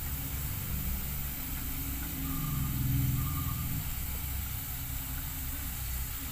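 Spiral-cut potato deep-frying in hot oil, a steady sizzle. Under it runs a low engine-like rumble that swells and fades around the middle.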